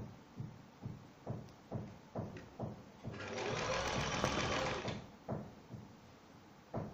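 Domestic electric sewing machine stitching trim onto fabric. It runs slowly in separate needle strokes, about two or three a second, then speeds up into a steady run for nearly two seconds in the middle, then slows to single strokes again.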